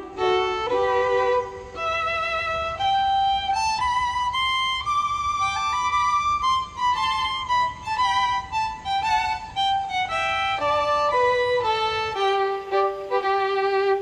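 Background music: a slow solo violin melody with vibrato, climbing in steps and then falling back.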